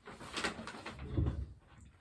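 Rustling of clothing and movement, then a brief low thud a little over a second in as a person sits back down in a mesh desk chair.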